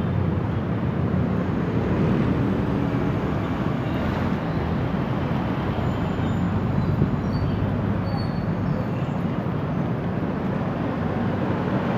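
Steady noise of busy road traffic: car engines and tyres passing on a city street.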